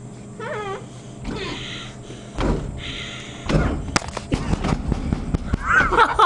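Thuds and knocks against a vending machine as it is hit and shaken to free candy stuck inside, the heaviest thuds about three and a half seconds in and more knocks following, with voices near the end.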